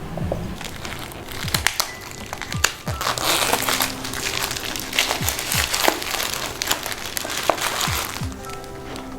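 Packaging crinkling and crackling as it is handled and pulled away from a new hardbound planner, densest in the middle stretch, over background music.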